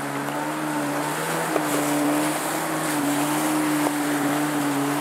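A two-seater jet ski's 700cc engine running steadily at speed, its note wavering slightly, over the rush of spray.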